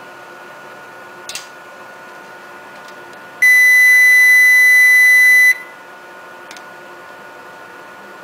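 Digital multimeter's continuity buzzer giving one steady high-pitched beep of about two seconds as its probes touch the evaporated metal film on an acrylic sample: the coating conducts. A light click comes about a second in.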